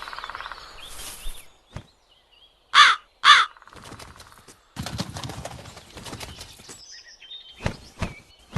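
Crow cawing twice in quick succession, two harsh calls half a second apart, with rustling and a few sharp clicks in the background.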